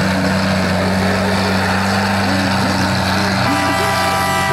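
Pulling truck's diesel engine running hard under full load as it drags a weight sled, a loud steady drone. A higher-pitched whine joins about three and a half seconds in.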